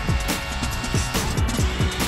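Background music: an electronic hip-hop beat with deep bass notes that slide down in pitch several times a second and a regular snare hit.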